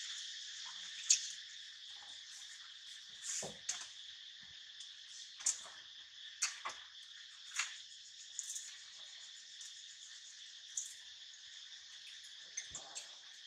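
Steady high insect chorus, an even buzzing drone, with a dozen or so short sharp clicks scattered through it.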